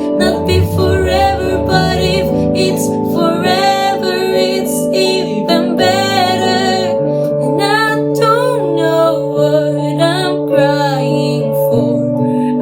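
A woman singing a pop ballad over acoustic guitar.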